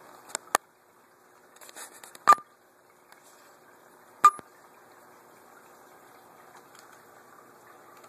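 Aquarium filter running with a steady watery hum, broken by a few sharp glassy clicks; the two loudest come about two and four seconds in, each with a brief ring.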